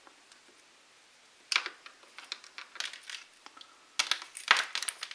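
Hands handling plastic over-ear headphones and their cable: scattered small clicks and taps that start about a second and a half in and come thickest near the end.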